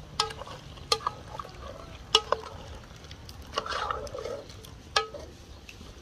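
Goat liver stew being stirred in a metal pot with a plastic spatula: a handful of sharp knocks of the spatula against the pot, each with a short ring, and a longer scraping stir a little past halfway.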